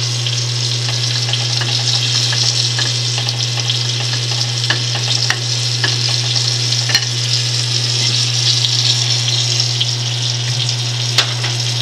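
Oil sizzling steadily in a cast-iron skillet as cornmeal-and-flour-coated rock cod nuggets shallow-fry, over a steady low hum. A few light clicks of metal tongs come through the sizzle.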